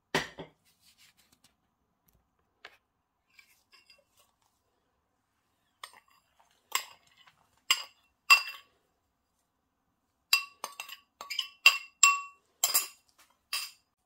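A metal spoon clinking against a ceramic bowl while light brown sugar is spooned and knocked out of it, about a dozen sharp, ringing clinks over the second half. A single duller thump comes right at the start.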